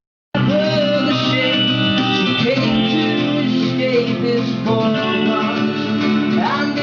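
Live band music with strummed guitars, cutting in abruptly after a moment of silence at the very start.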